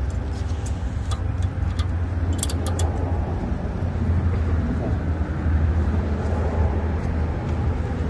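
A few light metal clicks as brake pad clips and shims are fitted into a car's front brake caliper bracket, some about a second in and a quick cluster about two and a half seconds in, over a steady low rumble.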